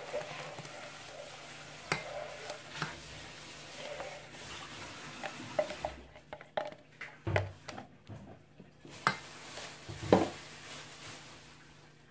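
Yeast mixture poured from a plastic measuring cup into a glass bowl of flour, then a silicone spatula scraping the cup and knocking against the cup and bowl several times, the loudest knock near the end.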